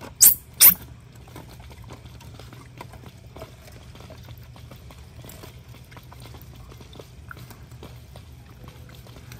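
Baby monkey giving two short, shrill squeaks in quick succession, about half a second apart, followed by faint rustling and small clicks of the monkeys being handled in a mesh basket.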